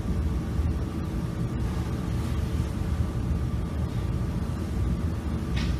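Steady low rumble and hum of background room noise, with a faint hiss and no speech.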